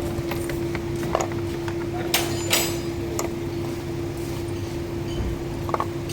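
Metal objects clinking and knocking now and then, a handful of short sharp strikes, over a steady low hum.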